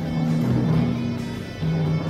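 Background music with long held low notes.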